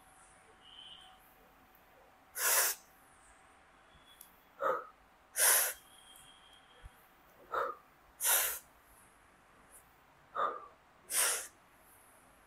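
A man breathing hard through repetitions of a cable triceps pushdown: four forceful, hissing breaths out, about three seconds apart, with a shorter, softer breath in between them.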